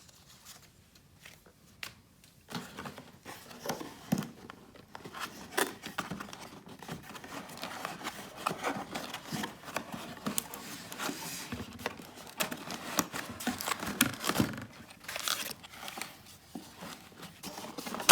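Packaging being handled as a soldering station kit is unpacked: paper and plastic wrapping crinkling and rustling, with small knocks and clicks. It starts after a couple of seconds of quiet, and a sharper click comes at the end.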